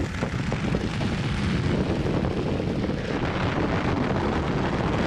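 Rocket engine exhaust noise at liftoff: a steady, rough rushing noise weighted toward the low end.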